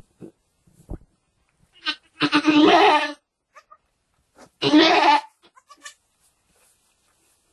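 Goat bleating twice, each call just under a second long, about two seconds apart.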